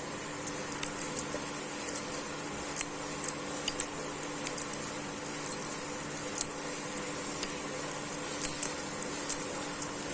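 Turmeric and ginger paste cooking in ghee in a pan, crackling with small, sharp pops at irregular intervals, a few each second, over a steady hum.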